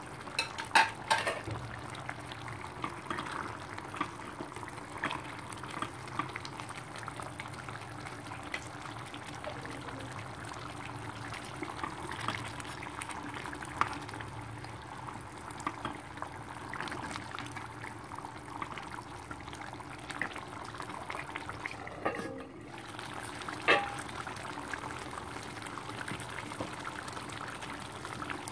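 Mustard-gravy fish curry simmering in a pan, bubbling with a steady run of small pops. A few sharper clicks of spatulas against the pan as the gravy is spooned over the fried fish, about a second in and again near the end.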